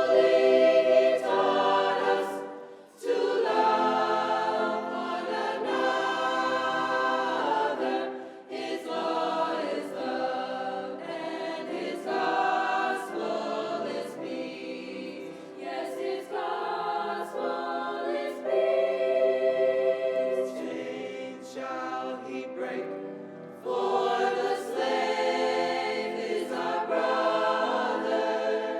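A school choir singing a holiday song, pausing briefly between phrases.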